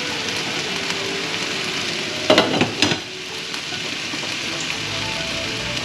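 Kale and baked tofu stir fry sizzling steadily in the pan, with a brief clatter of a utensil stirring and scraping about two and a half seconds in.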